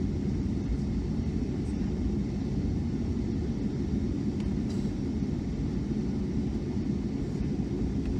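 Steady low rumble of a Boeing 757-200's engines and airflow, heard from inside the passenger cabin as the airliner departs. The level holds even throughout.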